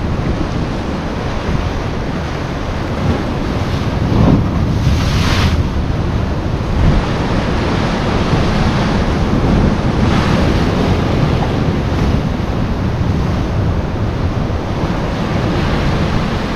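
Sea waves breaking and washing against shore rocks, with wind buffeting the microphone; one wave breaks louder about four to five seconds in.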